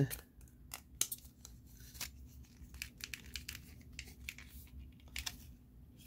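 Small sharp snips and clicks of plastic support ribs being cut out of a remote control's case, scattered irregularly.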